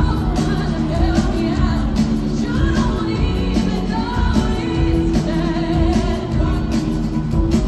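Pop song: a singer's voice over bass and drums with a steady beat.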